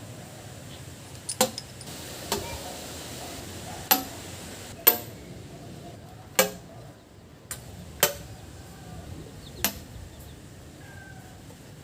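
Tools striking metal engine parts: about eight sharp taps with a brief ring, spaced irregularly, during valve seal work on an Isuzu diesel engine.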